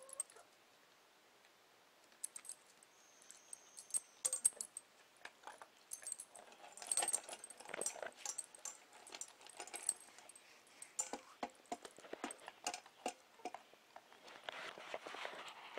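Dry kibble clicking and rattling in a stainless steel dog bowl as a Doberman eats from it and a hen pecks at it, with the metal tags on the dog's collar jingling. The clicks come in a quick irregular run, thickest in the middle, with a short rustle near the end.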